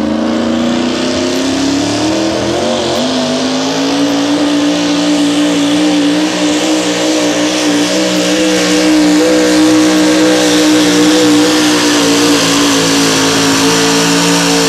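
Modified four-wheel-drive pulling truck's engine at full throttle, hauling a weight-transfer sled: the pitch climbs over the first two or three seconds, then holds high and steady through a full pull. The engine drops away sharply at the very end as the driver lifts off.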